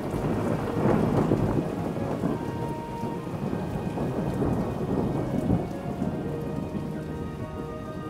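Thunderstorm: a long roll of thunder over steady rain falling on a surface, loudest about a second in, with soft sustained music tones underneath.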